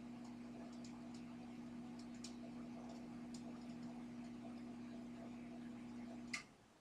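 Microwave oven running with a steady low hum and faint, irregular ticks over it. Near the end a sharp click sounds and the hum cuts off as the oven stops.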